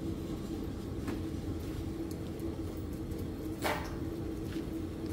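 Steady low mechanical hum, like a motor running, with a light knock about a second in and a short scrape or clatter about three and a half seconds in as things are handled at the van's open side door.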